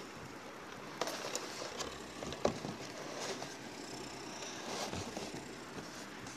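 Beyblade spinning top spinning in a plastic stadium, a faint steady whir, with a few scattered sharp clicks and knocks in the first half.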